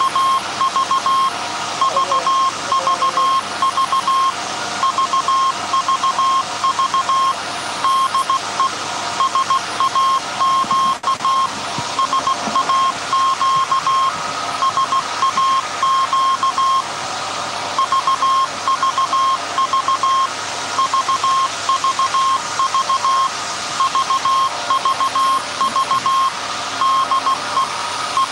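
Morse code from the 1924 Alexanderson alternator transmitter SAQ, heard as a single high beep keyed on and off in dots and dashes as the message is sent. A steady machine-hall noise runs underneath.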